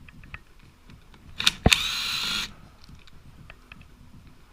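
Cordless impact driver on an engine crankcase bolt: a sharp knock about a second and a half in, then a steady whir of just under a second as the bolt spins out. Light clicks of the socket and tool come before it.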